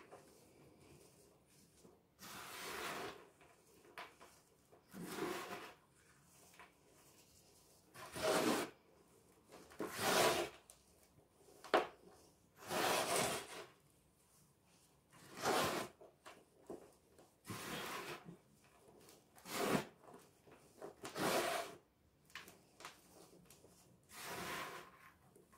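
Hands scooping and squeezing dry, lumpy powder and letting it sift through the fingers into a plastic tub. About ten separate rustling strokes, each under a second long, come every two to three seconds.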